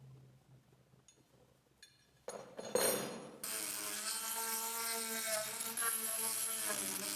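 A few light metal clinks, then a small electric power tool starts up about two seconds in and runs steadily with a buzzing whine.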